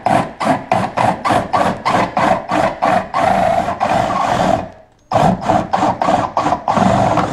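A drill with a 1 3/8-inch spade bit boring through a rotomolded polyethylene kayak hull. It makes a rough, rhythmic scraping of about three or four strokes a second that runs together for a moment, stops briefly about five seconds in, then starts again.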